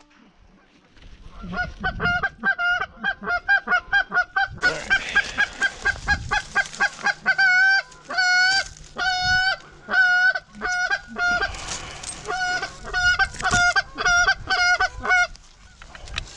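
Goose honking: runs of short, quick honks, several a second, then longer drawn-out honks that bend in pitch, with brief pauses between runs.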